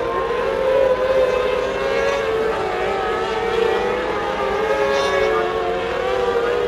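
Several mini sprint race cars' engines running hard at high revs, their overlapping pitches wavering up and down as they circle the dirt oval.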